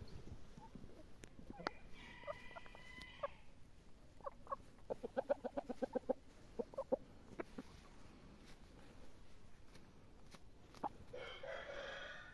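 Índio gamefowl chickens in a pen clucking and calling: a call about two seconds in, a quick run of clucks in the middle, and another call near the end.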